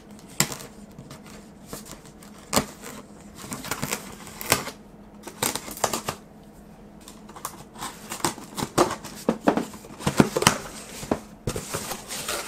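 A cardboard shipping box being opened and handled: irregular clicks, taps and rustles of tape, flaps and packing, busiest in the second half.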